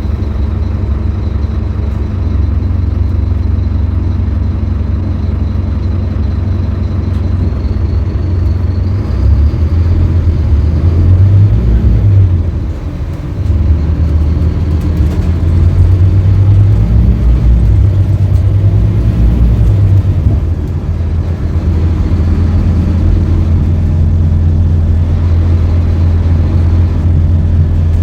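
Scania K310UB city bus's five-cylinder diesel engine running as the bus drives, pulling harder in two long stretches with a brief drop in between, about halfway through.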